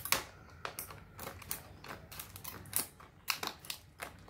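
Scissors snipping through the hard plastic of a blister pack: a series of irregular crisp snips, a few a second.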